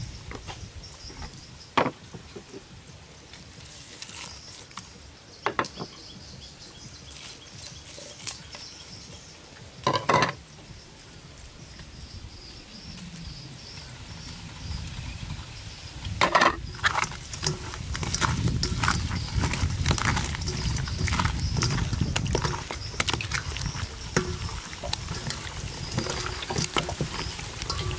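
A few separate knocks and clinks in a stainless steel bowl as seasonings go in. From a little past halfway, gloved hands knead whole catfish in wet chili marinade: continuous wet squelching with quick small clicks.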